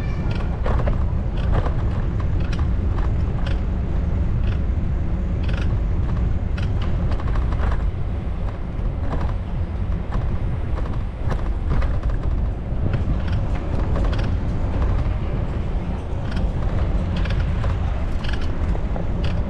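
Steady wind buffeting on the camera's microphone while cycling, with many scattered short clicks and rattles.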